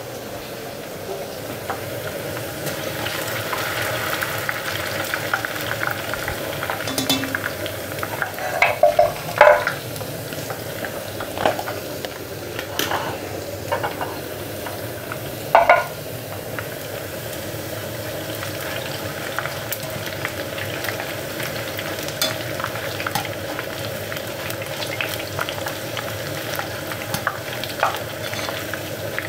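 Thin potato slices frying in hot beef tallow and ghee in a cast-iron pot, a steady sizzle, with a few sharp clicks and knocks of utensils between about 7 and 16 seconds in.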